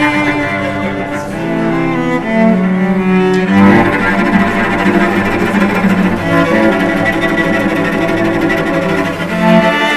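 Two cellos bowed together, with a man's operatic-style singing voice over them at the start. About three and a half seconds in, the cellos change to a fuller, busier passage.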